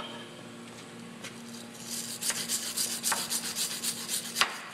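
A bristle brush scrubbed back and forth over freshly welded heat exchanger tube-to-tubesheet joints. The rapid scratchy strokes, about five a second, start about two seconds in and stop just before the end.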